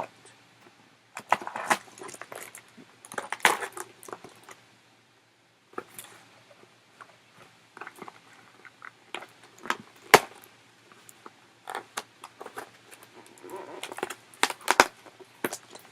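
Packaging being handled as a doll is taken out of its box: irregular rustling and small clicks, with a sharp click about ten seconds in.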